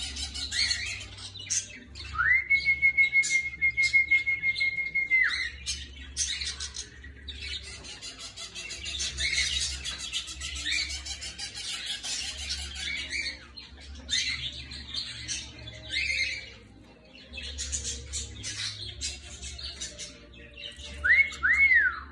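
Budgerigars warbling and chattering in rapid high twitters, with one long steady whistle lasting about three seconds that starts about two seconds in, and two quick rising-and-falling whistles near the end.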